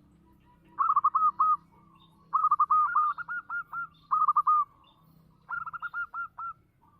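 Zebra dove (perkutut) singing: four phrases of quick, repeated staccato coos, each a run of three to seven short notes.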